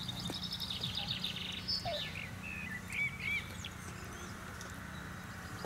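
Small birds singing: a fast high trill for about a second and a half, then a few short chirps, over a steady low hum.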